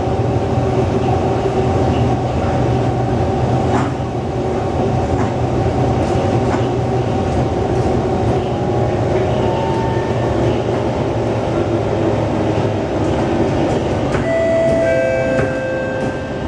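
SMRT C151 metro train heard from inside the carriage while running: a steady rumble with whining tones that shift in pitch about ten seconds in and again near the end, and a few faint clicks.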